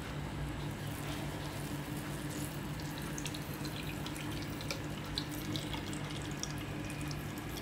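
Liquid trickling and dripping into a basin as grated cassava pulp is squeezed out by hand, over a steady low hum.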